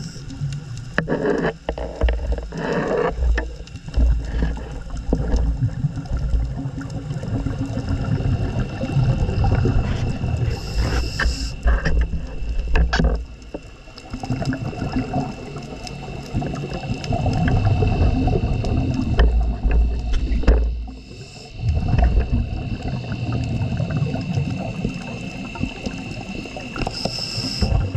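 A scuba diver breathing through a regulator, heard through an underwater camera housing. Long rumbling bursts of exhaled bubbles alternate with brief high hisses of inhalation, one about 11 seconds in and one near the end.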